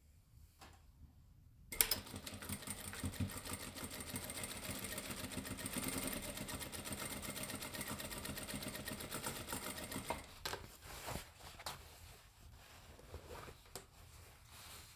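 JACK industrial lockstitch sewing machine topstitching a seam. It starts with a click about two seconds in and runs steadily at speed for about eight seconds, then stitches in short runs broken by clicks.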